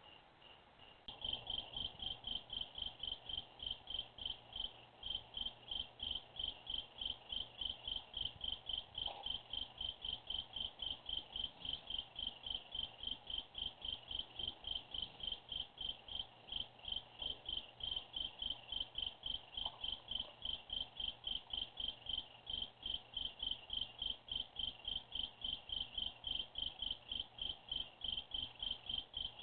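Crickets chirping at night in a steady, fast rhythm of high chirps, several a second, that grows louder about a second in.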